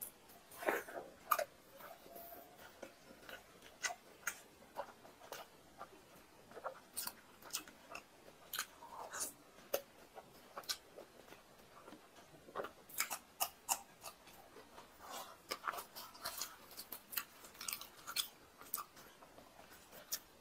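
Close chewing and wet mouth sounds of a person eating soft fried luchi bread and mutton curry, with irregular short clicks and smacks.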